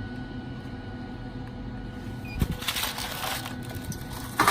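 Handling sounds at a loaded pellet smoker: a dull thump about two and a half seconds in, then about a second of rattling and scraping, and a sharp knock near the end, over a steady hum.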